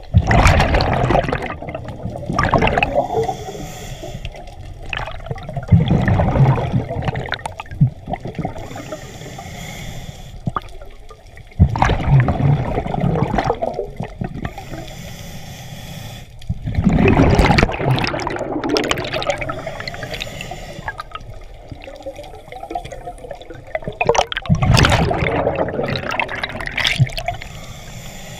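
Scuba diver breathing through a regulator underwater: exhaled bubbles rush and gurgle past the camera in about five loud bursts, roughly every five to seven seconds, with quieter stretches between them.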